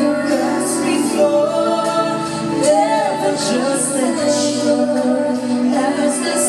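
Music with a singing voice: a melodic song with sustained sung notes over a steady accompaniment.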